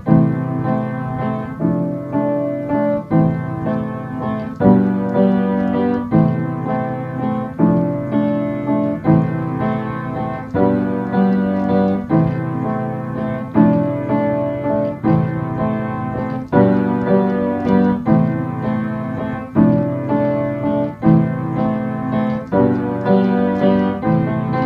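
Piano playing a self-composed tune: block chords struck in a steady rhythm, a new chord about once a second.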